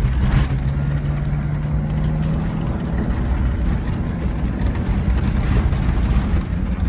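Steady engine and tyre rumble of a vehicle driving on a dirt road, heard from inside the cabin, with a steady engine note in the first couple of seconds.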